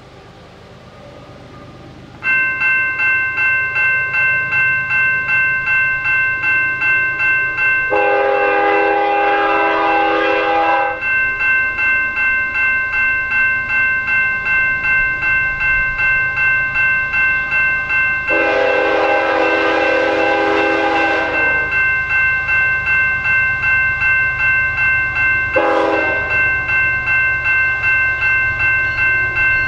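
A railway level-crossing bell starts ringing about two seconds in, pulsing steadily about twice a second. Over it a freight locomotive's air horn sounds the grade-crossing signal: two long blasts and then a short one near the end.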